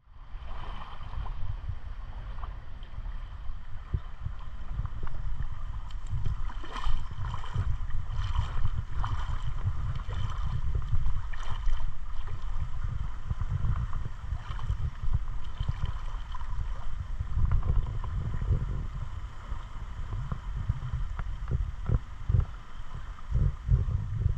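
Wind buffeting the microphone in a gusty, uneven rumble, with water sloshing and a few brief knocks or splashes.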